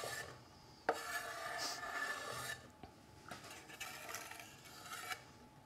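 Flat of a chef's knife scraping chopped leek across a wooden chopping board into a pan: a sharp knock about a second in, then scraping for about a second and a half, with fainter scrapes later.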